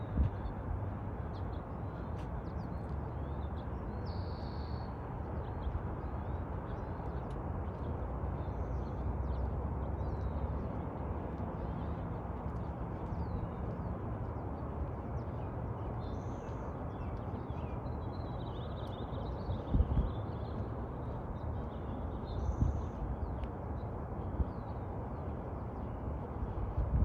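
Outdoor ambience: a steady low rumble with small birds chirping faintly throughout. A couple of low thumps come about two-thirds of the way through.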